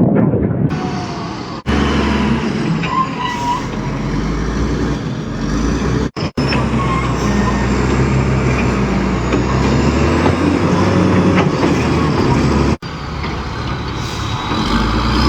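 Heavy truck diesel engines running under heavy overload. The sound comes in several short clips, with abrupt cuts about two, six and thirteen seconds in.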